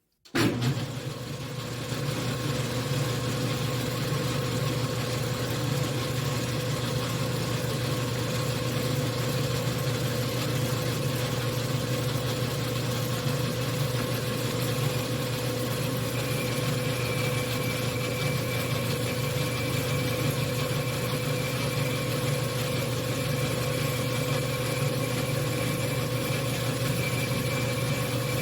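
1953 Logan engine lathe starting up and running steadily while a boring bar takes a light clean-up cut inside an aluminium spacer. A thin high whine joins about halfway through.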